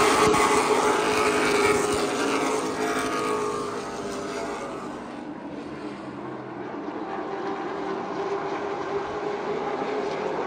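A pack of stock-car engines passing on the track, loudest at first, then dropping in pitch and fading as the cars move away over the first few seconds. The engines stay audible more faintly, growing a little louder again near the end as the field comes back around.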